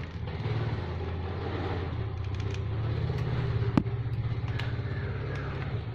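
An engine idling steadily in the background with an even low throb, and one sharp click a little under four seconds in.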